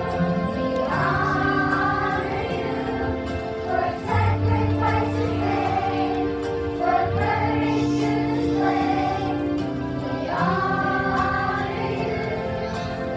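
School choir singing with instrumental accompaniment: sustained held notes, the voices rising into new phrases about a second in and again near the end.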